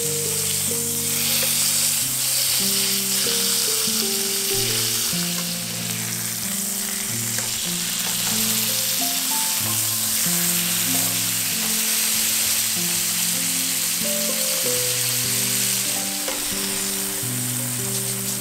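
Food frying in a pan with a steady sizzle, under background music of held melody notes.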